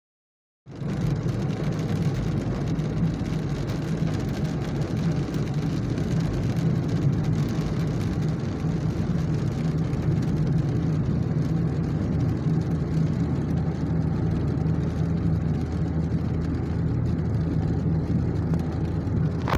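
Steady low road and engine rumble heard from inside a moving car's cabin, starting abruptly just under a second in.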